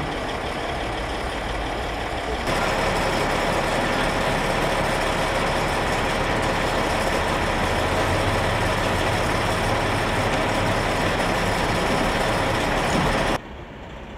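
Heavy military truck's diesel engine running steadily. It gets louder about two and a half seconds in and drops away sharply near the end.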